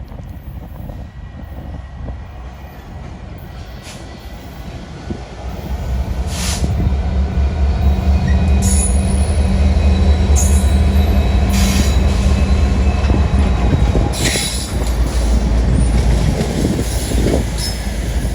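A diesel-hauled train passing close by, growing loud about five seconds in, with a steady low engine hum and several short, high wheel squeals.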